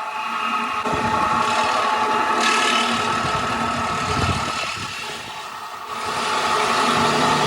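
Heavy machinery running with a steady whine and a rasping, grinding noise, dipping briefly about five seconds in before picking up again.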